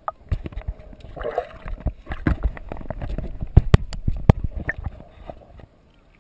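Water sloshing and gurgling around a camera held underwater while snorkeling, with many irregular sharp clicks and knocks. It dies away shortly before the end.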